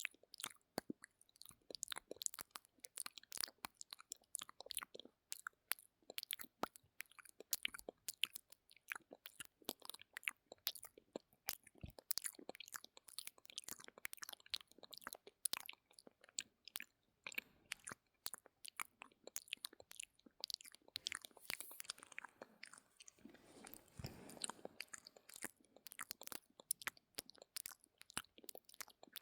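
ASMR mouth sounds made close to the microphone: quick, irregular wet clicks and smacks of the lips and tongue. About three-quarters of the way through, a longer, smoother sound lasting a few seconds breaks the clicking.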